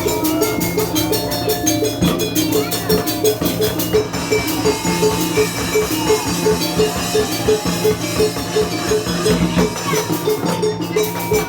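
Indramayu obrog street-ensemble music: drums with a ringing metal percussion beat at about three strikes a second under held melodic notes.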